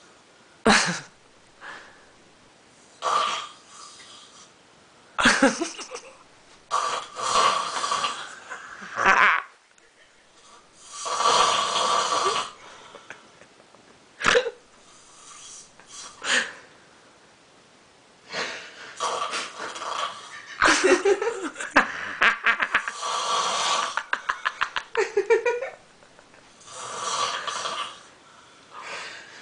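A man snoring in a heavy drunken sleep: an irregular string of snores a second or two long, a few seconds apart. The longest run, about two thirds of the way in, has a fast fluttering rattle.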